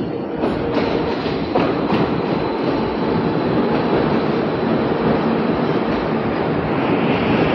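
Siemens–Bombardier 11th batch electric metro train of the Kifissia–Piraeus line pulling in alongside the platform. A few sharp clacks of wheels over rail joints come in the first two seconds, then a steady rumble of running wheels and traction equipment.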